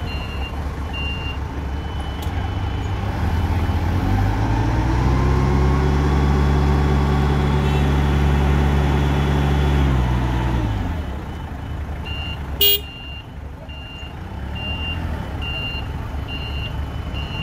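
Caterpillar forklift's engine revving up as it drives with a loaded pallet, holding steady for several seconds and then dropping back to idle about ten seconds in. A forklift's reversing beeper beeps repeatedly at the start and again from about twelve seconds, just after a single sharp knock.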